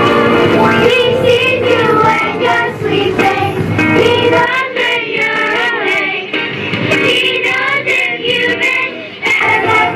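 Children's choir singing with musical accompaniment; the deepest bass of the accompaniment drops away about halfway through.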